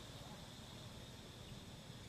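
Faint outdoor ambience: a low steady rumble with a thin, steady high tone running through it.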